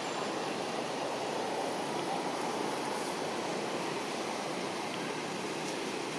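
Steady rushing background noise, even and unbroken, with no distinct events.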